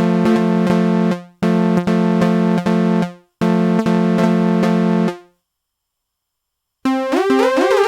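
Synthesizer playing a repeated chord in a steady pulse of about four to five notes a second, in three short phrases. It falls silent for about a second and a half, then a different synth pattern with stepping, sliding notes starts near the end.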